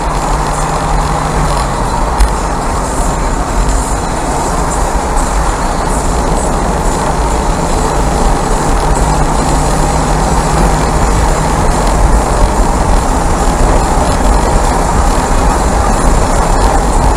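Mazda MX-5 on the move, heard onboard: a steady blend of engine, tyre and wind noise over a heavy low rumble, growing slightly louder as it goes.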